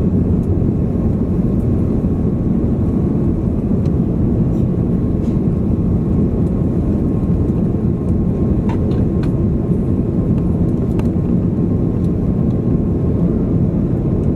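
Steady low rumble of an Airbus A330's engines and airframe heard inside the cabin, with a thin steady whine above it and a few faint clicks.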